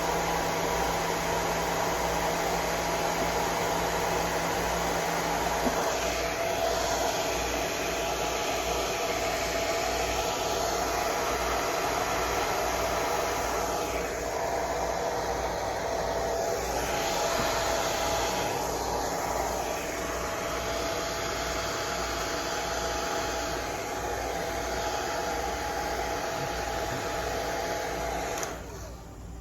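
Hair dryer blowing steadily while drying a guinea pig's coat, switched off near the end.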